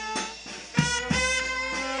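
Small brass band of saxophones, trumpet and tuba playing held notes over a drum kit. The band drops away briefly, then comes back in with a drum hit just under a second in and a second beat shortly after.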